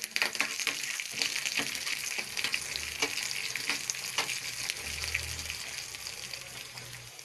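Tempering of ginger, cashews, cumin, pepper and green chillies sizzling and crackling in hot ghee in a small pan, with a spoon stirring it at first. The sizzle slowly dies down toward the end.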